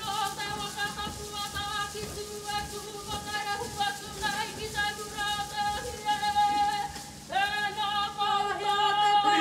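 Kapa haka group singing a waiata, many voices holding long wavering notes; a new held note starts about seven seconds in.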